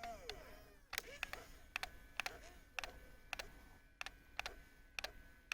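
Radio-controlled model excavator mechanism: a small electric motor whines and winds down in pitch at the start. It is followed by a regular run of sharp mechanical clicks, often in pairs, about two a second.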